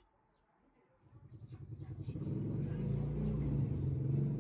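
A motor vehicle's engine, getting louder over the first two seconds and then running steadily at a low pitch.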